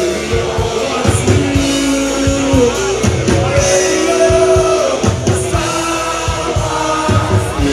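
Live rock band playing over a PA with a singer, long held notes over drum hits, heard from within the crowd.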